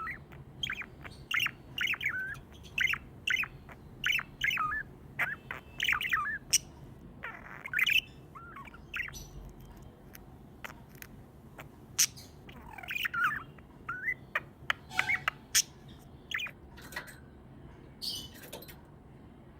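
Budgerigars chirping in quick runs of short warbling notes, with sharp clicks among them. The chirping pauses for a few seconds midway, resumes, then thins out near the end.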